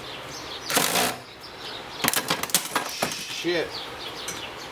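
Metal clinks and knocks as a ceiling fan's electric motor and hand tools are handled, with a quick run of sharp clicks about two seconds in.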